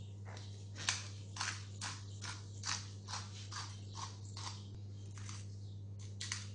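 Hand pepper mill twisted in short grinding strokes, about two a second, cracking peppercorns, with a short pause and a last couple of strokes near the end.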